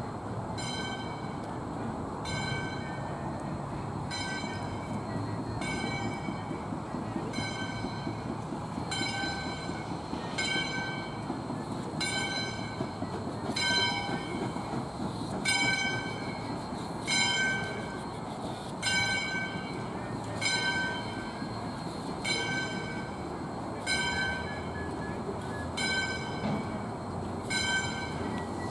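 Steam locomotive bell ringing at a slow, even pace, about one stroke every second and a half to two seconds, over a steady low rumble.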